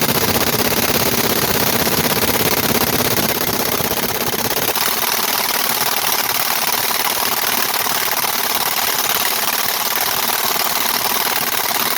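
Impact wrench hammering continuously while undoing the lower shock absorber bolt; its note shifts slightly about five seconds in.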